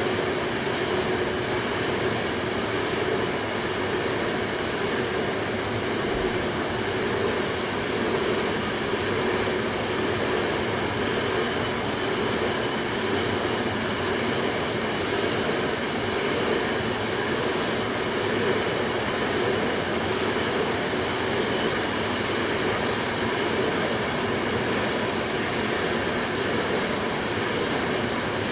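Long oil train of tank cars rolling steadily along the track, a continuous even rumble and rush with no breaks.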